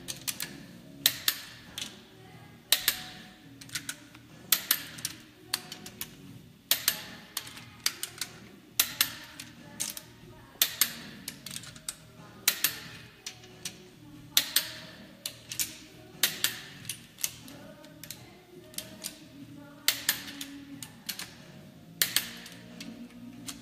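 Hazet click-type torque wrench clicking on the cylinder-head stud nuts of a VR6 engine: sharp clicks, often in pairs, about every two seconds. Each click is the wrench releasing at its set torque, showing that the nut is already tight.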